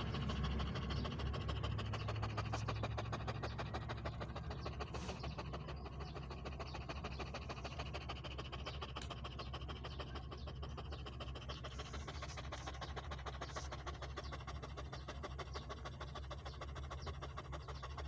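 A dog panting rapidly and steadily, with a low steady hum underneath.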